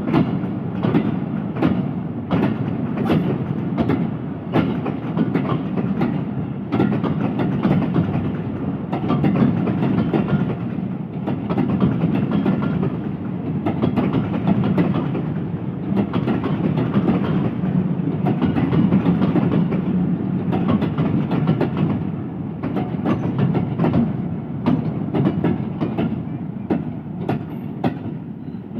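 Freight train of oil tank wagons rolling past at speed, with steady rumble and the rapid clickety-clack of wheels over rail joints, easing off slightly near the end.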